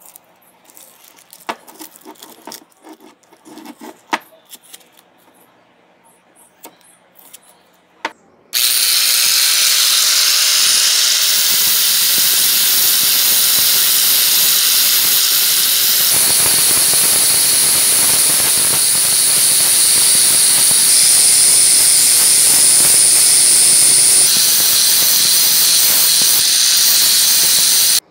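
Handheld angle grinder with a sanding disc grinding down a translucent pink hammer head: a loud, steady, high-pitched grinding that starts suddenly about eight seconds in. Before it, soft crinkling and small clicks of tape and paper being peeled off a handle by hand.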